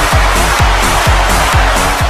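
Arena goal song, electronic dance music with a steady kick drum about two beats a second, played loud over a cheering hockey crowd.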